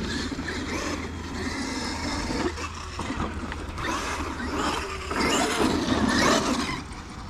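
Electric RC monster trucks, one a Traxxas Maxx 4S, driving over turf, with motor and tyre noise that grows louder as they come close, about five seconds in.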